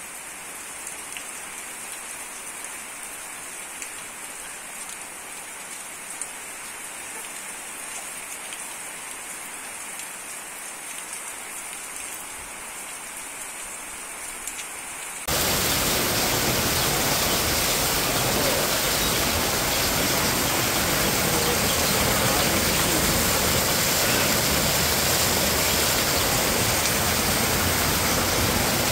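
Rain falling steadily on a street, a continuous hiss. About halfway through it jumps abruptly to a much louder, heavier downpour.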